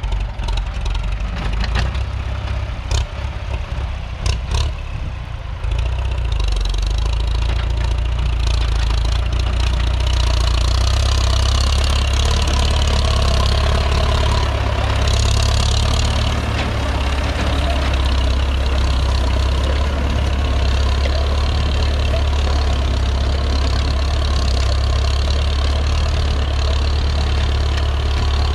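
Ford 6610 tractor's four-cylinder diesel engine running, with a few sharp knocks in the first few seconds. About six seconds in it steps up louder and deeper, as if throttled up or taking load, and then runs steadily.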